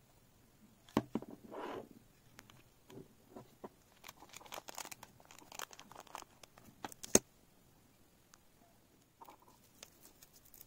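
A clear plastic parts bag crinkling and hard plastic parts clicking as they are handled. It starts with a click and a short rustle, crinkling fills the middle, and a loud sharp click comes about seven seconds in.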